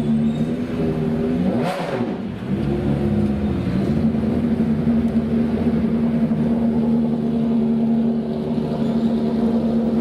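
Corvette C8.R race car's flat-plane-crank V8 running at a steady high note, dipping briefly about two seconds in before holding steady again.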